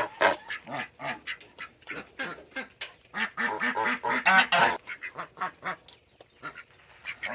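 Domestic ducks and geese calling: a rapid run of short quacks, several a second, that dies down about five seconds in.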